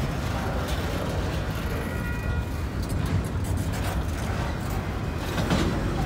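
Double-stack container well cars rolling past: a steady rumble of steel wheels on the rails, with a few short knocks.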